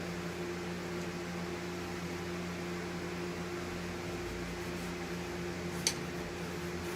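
Electric window fan running steadily with a constant hum. A single brief click sounds about six seconds in.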